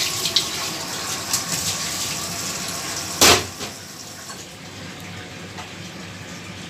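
Kitchen tap running water into a drinking glass over a stainless steel sink, with a single sharp knock about three seconds in, after which the water noise falls away.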